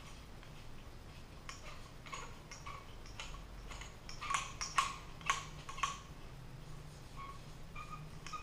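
Faint clicks and light taps from a floor lamp's metal pole and socket arms being handled during assembly, with a quick run of sharper clicks about four to six seconds in.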